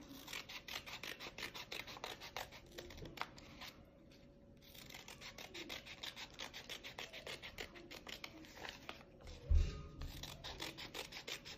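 Scissors cutting through folded paper in a run of quick, scratchy strokes, with a short pause about four seconds in and a dull thump late on.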